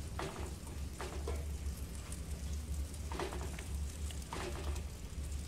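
Butter melting and sizzling faintly in a nonstick wok, stirred with a wire whisk, with a few soft swishes of the whisk against the pan. A steady low hum runs underneath.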